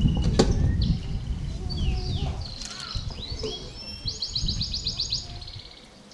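Small birds chirping and twittering with short sliding notes, and a fast trill about four seconds in. A sharp knock comes just after the start, over a low rumble that fades near the end.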